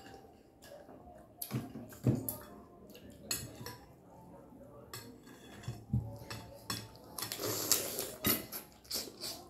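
A metal fork clinking and scraping against a glass plate in short, irregular strokes, with a busier run of scraping about three quarters of the way through.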